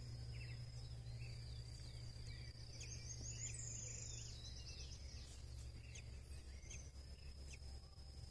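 Faint natural ambience: several birds giving short chirps and calls, over a steady high-pitched insect buzz and a low rumble.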